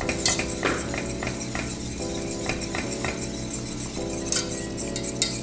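Wire whisk stirring a thickening béchamel in a stainless steel pot: quick, irregular clicks and scrapes of metal wires against the pot over a steady low hum.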